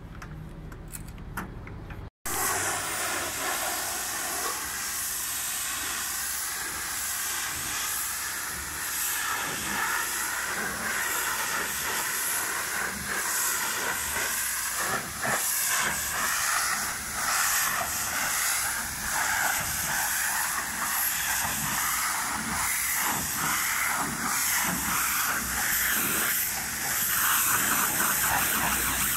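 High-pressure washer jet spraying water onto a truck's cab and grille: a loud, steady hiss that wavers as the lance is moved over the surface. It starts abruptly about two seconds in, after a quieter stretch.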